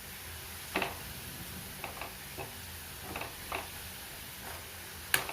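Onion, cumin and curry leaves frying in oil in a kadai: a faint steady sizzle with a few scattered clicks of stirring against the pan, the sharpest just before the end.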